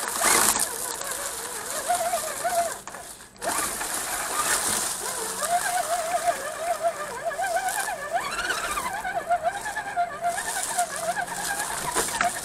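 Redcat Gen7 RC crawler's electric motor and gears whining through its onboard camera, the pitch wavering with throttle and climbing briefly about eight seconds in, over a steady hiss from the wheels on the trail. The sound drops out for a moment just past three seconds.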